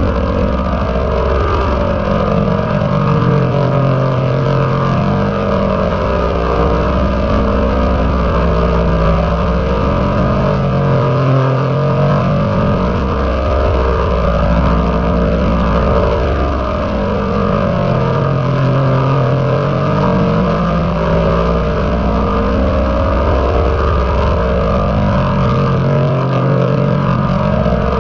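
Heavily processed "G Major"-style audio effect: a loud, continuous, dense droning rumble with a low hum that swells and fades every few seconds.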